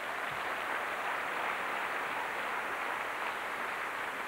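Tennis crowd applauding after a point: an even, steady clatter of many hands clapping.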